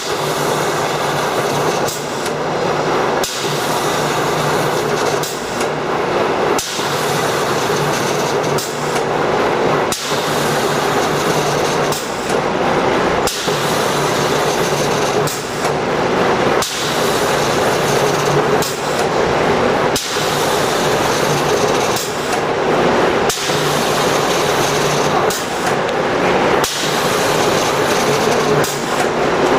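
CNC cardboard core cutter running: steady machine noise with a low hum, and a sharp knock every one to three seconds.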